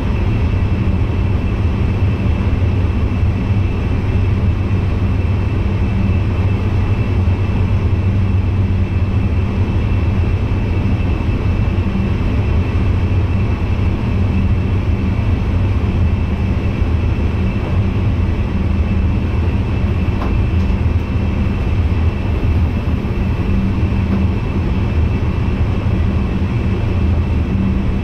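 NS VIRM double-deck electric train running steadily, heard inside the driver's cab: a constant low rumble from the running gear on the rails with a thin steady whine above it.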